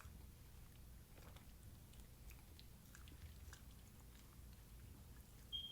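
Faint chewing and small mouth clicks of someone eating, over a low steady hum, with a brief high squeak near the end.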